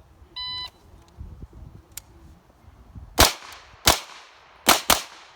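An electronic shot timer's start beep, then a SIG MPX 9mm pistol-caliber carbine firing four shots, the last two in quick succession, each with a ringing echo.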